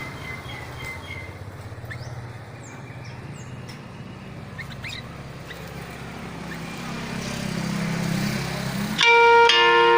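A motor vehicle's engine rumbling, growing louder toward the end as it passes, with a few faint bird chirps over it. About a second before the end, loud sustained musical notes suddenly start.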